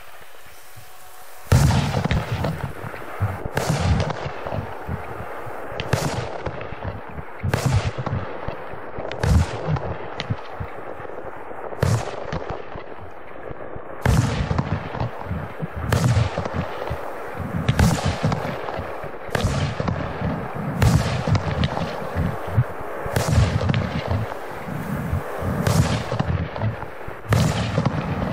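Bombuster 30 mm, 25-shot consumer fireworks battery (cake) firing shot after shot, a sharp bang about once a second starting about a second and a half in, with a steady hiss from the gold glitter comets between the shots.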